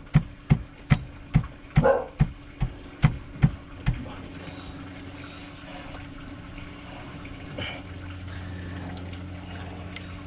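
Rapid, evenly spaced hammer blows on metal, about two and a half a second, stopping about four seconds in; after that a steady low mechanical hum.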